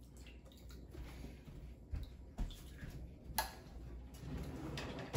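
Soup spoon clicking and tapping lightly against a ceramic bowl of soup, a few scattered soft clicks over a low room hum.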